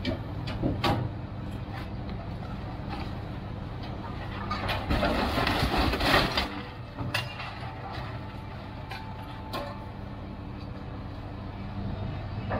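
Scrap handler's grapple unloading scrap steel from a trailer, over the steady hum of the machine's engine. Scattered sharp metal clanks, and a louder stretch of clattering, scraping metal about halfway through as the grapple closes on the load and pulls it out.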